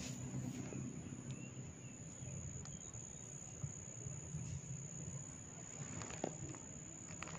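Hair cracking: a few small, sharp cracks as locks of hair are tugged at the scalp, scattered irregularly, with a pair of them close together about six seconds in. A faint steady high whine and low hum run underneath.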